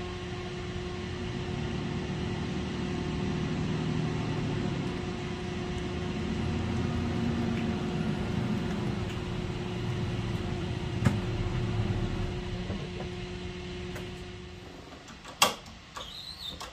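Work truck driving: a steady engine and road noise that fades away about fourteen seconds in, followed by a few sharp knocks.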